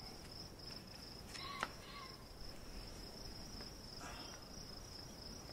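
Faint, steady high-pitched insect trilling, like crickets, with a couple of faint clicks about one and a half to two seconds in.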